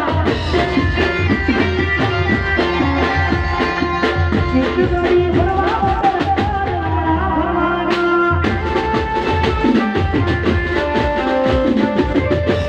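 Live band music: a dhol and drum kit keep a steady beat under a held keyboard melody, with a short change in the beat about seven seconds in.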